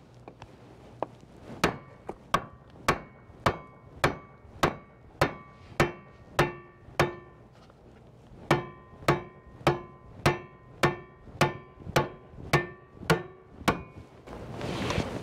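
Hammer taps on the hub of a bronze boat propeller, driving it up onto the tapered tailshaft to seat it for a fit check after lapping. Just under two taps a second, in two runs of about ten with a short pause midway, each tap leaving the propeller ringing.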